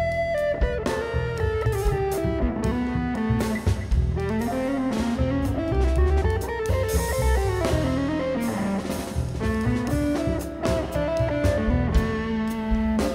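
Instrumental music from a band: guitar playing a melodic line over drums, with no singing.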